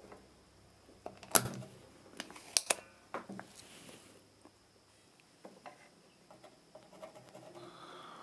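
Spring-loaded desoldering pump snapping as it fires, sucking molten solder off a transistor's joints to free it from the circuit board. One sharp snap about a second and a half in, then two quick clicks about a second later.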